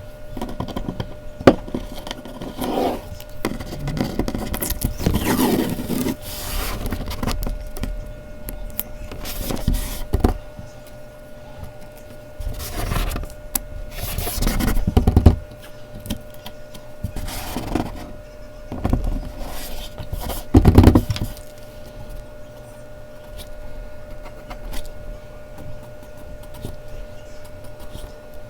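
Mechanical pencil scratching and rubbing on Bristol paper in irregular strokes, with a few louder scrapes.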